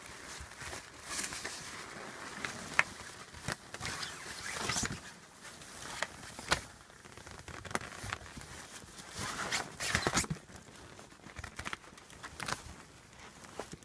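Rough collie puppies moving about: irregular patter and scuffling of small paws, with scattered light clicks.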